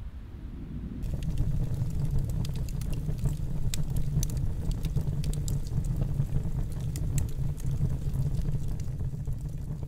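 Wood fire burning in a tent wood stove: many sharp crackles and pops over a steady low rumble of the fire, starting about a second in.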